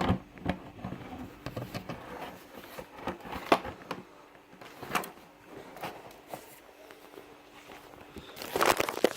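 Scattered clicks, knocks and rustling from hard plastic leaf blower parts being handled and pushed together, with a sharp click about three and a half seconds in and a burst of rustling near the end.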